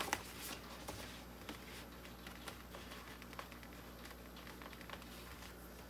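Handling of a sheet of iron-on vinyl: a brief crackle and rustle of the plastic in the first half second as it comes off the roll, then scattered light taps and rubbing as it is smoothed flat and marked.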